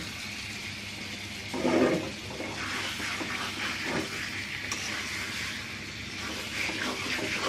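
Chicken pieces sizzling in oil and fried onion-spice paste in a wok-style pan while a metal spatula stirs and scrapes them around; a short vocal sound about two seconds in.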